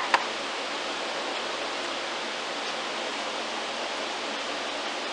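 Two quick, sharp knocks right at the start, a chisel being struck while cutting out dovetails in wood, followed by a steady, even hiss of background noise.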